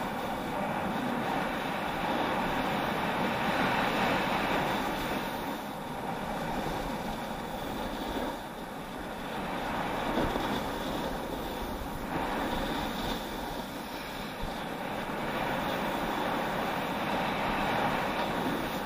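Skis scraping and sliding over packed snow during a downhill run, a steady rushing noise that swells and eases with the turns, mixed with wind buffeting the camera's microphone.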